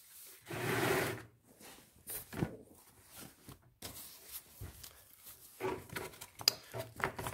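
Handling noises: a brief rustle of terry-cloth towel about a second in, then scattered light clicks and taps as stones and the phone are moved about.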